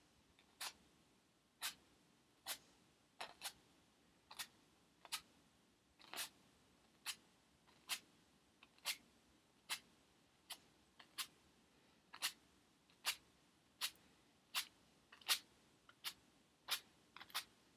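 Paintbrush strokes on a stretched canvas: light, sharp taps roughly once a second, unevenly spaced and now and then in quick pairs, as the brush meets the taut canvas.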